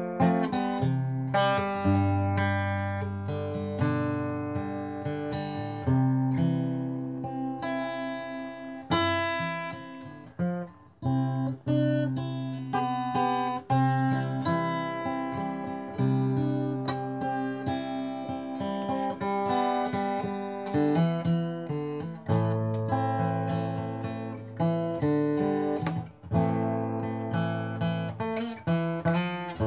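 Acoustic guitar played solo, chords strummed and left to ring, a new chord about every two seconds.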